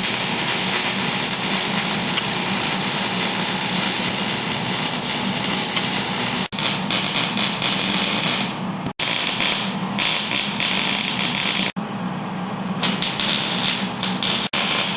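Welding on a steel exhaust X-pipe: a steady, loud sizzling hiss with a low hum underneath, cutting off abruptly and resuming several times.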